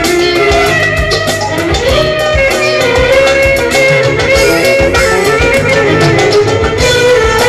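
Live band playing instrumental music: a clarinet carries an ornamented melody over electric guitar, bass guitar, drum kit and keyboard.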